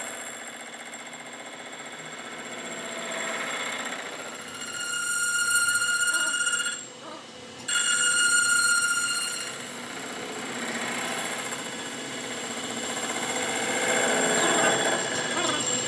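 A high-pitched, ringing mechanical whine made of several steady tones, which cuts out briefly about seven seconds in and then resumes.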